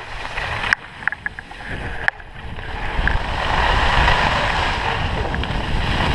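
Wind rushing over a handheld GoPro's microphone, with skis hissing over packed snow, building from about two and a half seconds in as the skier picks up speed. A few sharp knocks come in the first two seconds.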